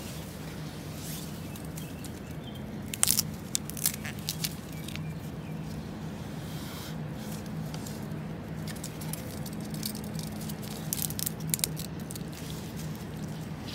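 Dry bamboo leaves and stalks crackling and scraping as someone pushes through a dense bamboo grove over a thick layer of fallen leaves. Clusters of sharp snaps come about three seconds in and again near the end, over a steady low hum.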